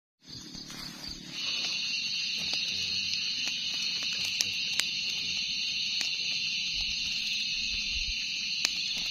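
A dense, steady, high chorus of insects that swells in about a second in, over a campfire crackling with a few sharp pops.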